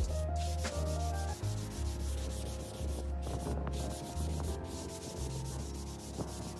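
A sanding sponge rubbed back and forth by hand over plywood, working into the routed grooves, under background music with a low, shifting bass line.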